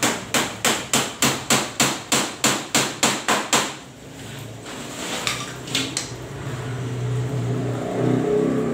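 Hammer driving nails into a wooden cage frame: about a dozen quick, evenly spaced strikes, roughly three a second, then a short pause and a few lighter taps.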